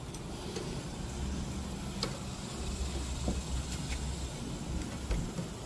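Faint scattered clicks and handling noises over a low steady hum.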